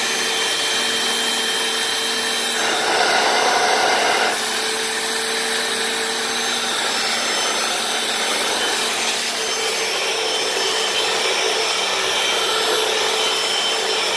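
Hoover Floormate wet floor cleaner running, its suction motor whining steadily while the spinning brushes scrub the garage floor. It gets louder for about a second and a half around three seconds in.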